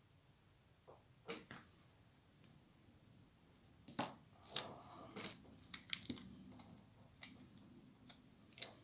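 Small clicks, taps and rustles of tools and materials being handled on a fly-tying bench: a few sharp ticks about a second in, then a quick scatter of a dozen or so from about four seconds in.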